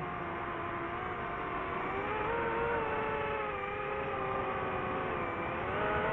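DJI FPV drone's motors and propellers whining. The pitch drops at the start, climbs again after about two seconds, dips shortly before the end and then rises, following the throttle.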